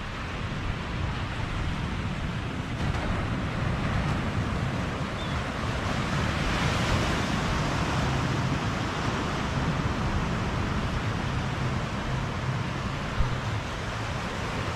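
Ocean surf washing onto a sandy beach as a steady rush that swells about six seconds in and eases a few seconds later, with wind rumbling on the microphone.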